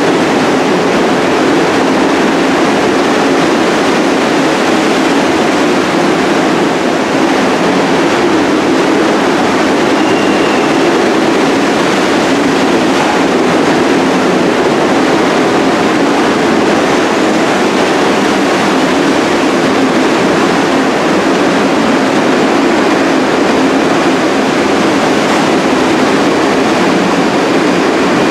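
New York City subway train of R62A cars on the 1 line rolling past the platform of an underground station, a steady loud rumble of wheels on rail.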